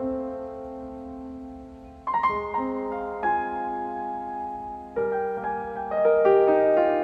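Background piano music: slow, sustained notes, with a fuller, louder passage near the end.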